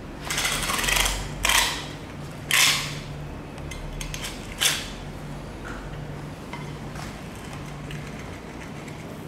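Large knife scraping and crunching along a bluefin tuna's backbone and rib bones, in four short rasping strokes over the first five seconds, the loudest about two and a half seconds in.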